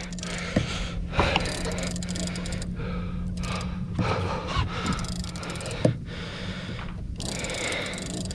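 Boat engine running with a steady low hum. A few short knocks and clicks come from a Shimano Tiagra big-game reel being wound against a hooked bluefin tuna.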